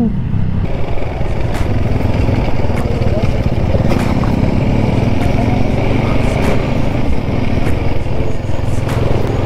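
TVS Apache RTR 200 4V single-cylinder motorcycle engine running steadily while riding along at cruising speed, with wind noise rushing over the microphone.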